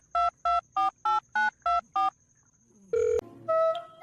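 Telephone keypad tones: a quick run of about eight dual-tone dialing beeps, roughly four a second, stopping about halfway through. A sharp click follows near the end, then a short steady tone.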